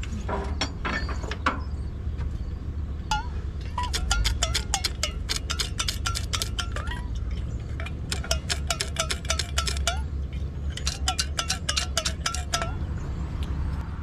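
Ratchet wrench clicking rapidly in three runs, each click with a short metallic ring, as the stuck engine of a 1947 Case VAC tractor is worked back and forth to free it past a hard spot.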